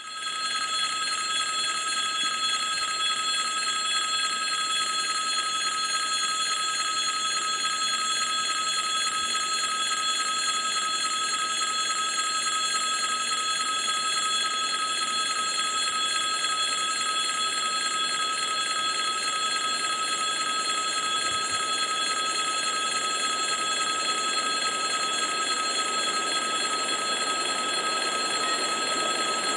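Electric railway warning bell, of the kind at a level crossing, ringing nonstop at an even level.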